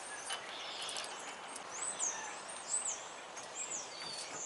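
A small bird chirping: a handful of short, high, arched notes spread over a couple of seconds, over a steady background hiss, with a few faint clicks early on.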